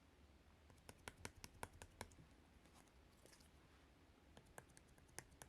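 Slime being pressed and worked by hand, giving faint sharp clicks and pops: a quick run of about eight clicks in the first two seconds, then a few more near the end.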